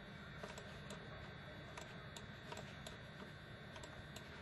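Faint, irregular clicking of a computer mouse, about ten clicks, over a steady low background hum.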